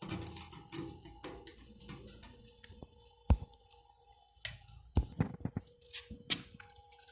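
Scattered light clicks and clinks of small metal parts and tools being handled during gate-lock fitting, with a sharp knock about three seconds in and another about five seconds in.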